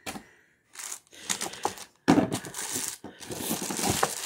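Plastic wrapping crinkling and rustling against cardboard as plastic-bagged airsoft gun parts are handled in their box. It comes in irregular bursts, louder and busier from about two seconds in.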